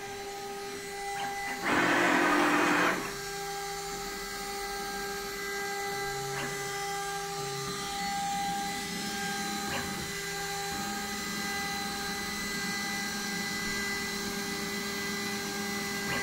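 DIY CNC router spindle motor running with a steady high whine, the motor switched on through Mach3. Lower tones underneath shift in pitch a few times. About two seconds in, a loud rushing burst of noise lasts a little over a second.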